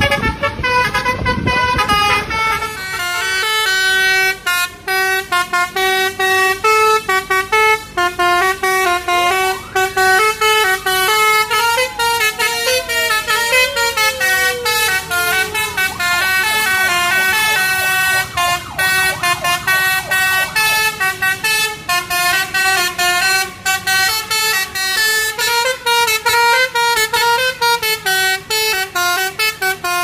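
Bus telolet horns, Basuri-type multi-tone air horns, playing fast repeating tunes of short stepping notes. The sound changes abruptly a couple of seconds in, and one long falling tone slides down near the middle.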